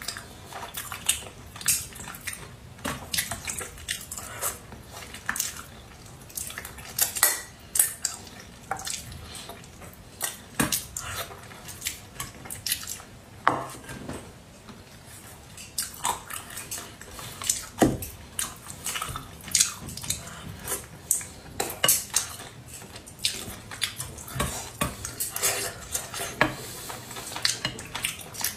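Close-up eating sounds: irregular sharp clicks of chopsticks against a metal bowl and plate, mixed with wet chewing and slurping of braised fish.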